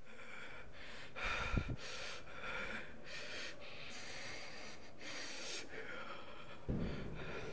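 A man breathing heavily through his open mouth close to the microphone, about a dozen quick, noisy breaths in a row. There is a low bump about one and a half seconds in.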